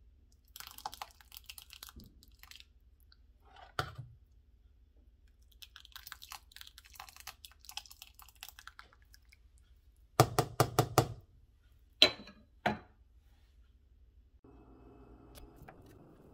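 A metal ladle scooping and pouring thick potato soup in a steel saucepan, with soft wet crackling as the soup pours. About ten seconds in comes a fast run of about six loud knocks, then two sharp clicks. A faint steady hum starts near the end.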